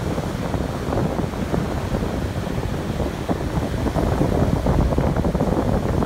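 Ocean surf: small waves breaking and washing up the sand, with wind buffeting the microphone. The sound grows a little louder in the second half.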